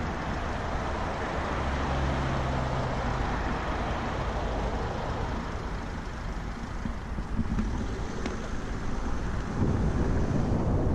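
Road traffic noise, cars running around a roundabout, picked up by a cyclist's GoPro microphone. Near the end a louder low rumble of wind on the microphone comes in.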